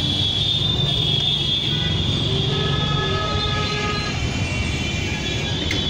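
Steady street-traffic din: a continuous low rumble of passing buses and auto-rickshaws, with horn tones sounding over it around the middle.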